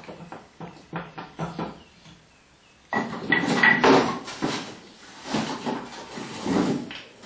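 Metal parts of a homemade wood gasifier burner being handled at its top: short knocks and clanks, with a denser clattering and scraping stretch about three seconds in.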